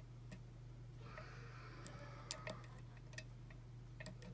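A few faint, scattered clicks of a hook pick against the pin tumblers of a pin-tumbler lock being picked, with a low steady hum underneath.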